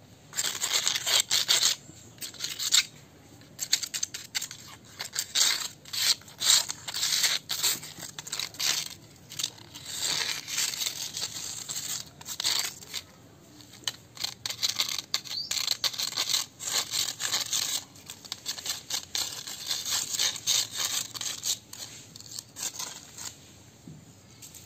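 Dry leaf crackling and rustling in irregular, crackly bursts as a kitten plays with a dry leaf on a stalk held in a person's hand, with short lulls between flurries.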